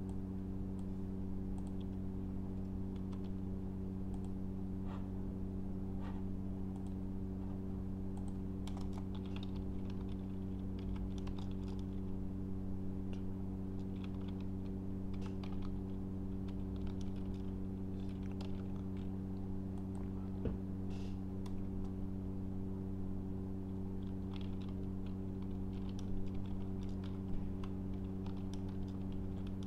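Typing on a computer keyboard: irregular runs of keystrokes with short pauses, over a steady low hum.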